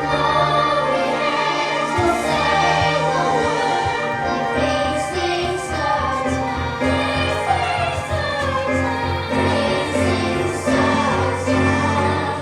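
A young musical-theatre cast singing a show number together as a chorus over instrumental accompaniment, breaking off at the very end.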